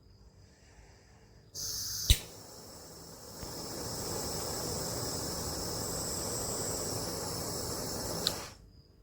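Sondiko S907 butane torch: a gas hiss starts, a sharp click comes half a second later, and then the flame burns with a steady rushing hiss for about six seconds before a second click and an abrupt cut-off.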